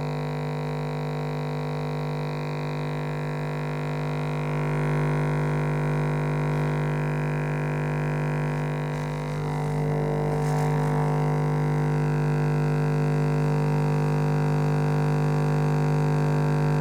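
Electric shaver motor buzzing steadily with a constant droning pitch. It grows a little louder and briefly rougher about halfway through.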